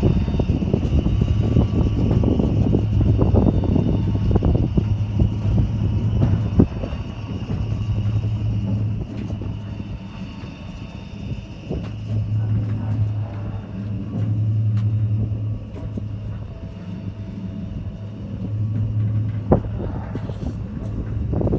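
Oil-well pumpjack running: a low machine hum that swells and fades in spells of one to two seconds over a faint steady high whine, with a heavy low rumble that is loudest in the first six seconds.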